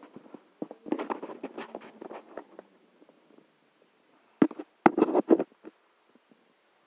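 Kitchenware being handled: a run of light clattering clicks and knocks, then a few louder, sharper knocks about four and a half to five and a half seconds in.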